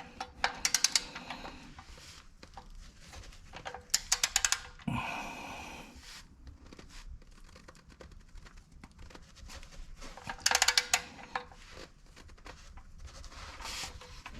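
Torque wrench ratchet clicking in three short bursts of rapid clicks as the oil drain plug is tightened down on its new crush washer.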